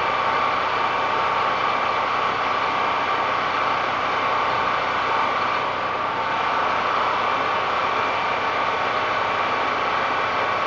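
A steady mechanical drone, like an engine or motor running, with a constant high hum and no change in level.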